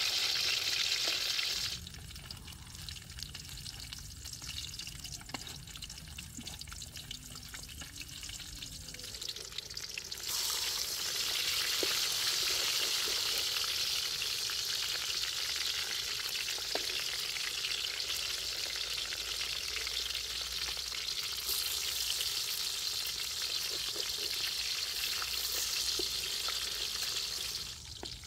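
Eggs frying in hot oil inside bell pepper rings in a wok: a steady sizzle, loud for the first couple of seconds, softer for several seconds, then loud again from about ten seconds in until just before the end.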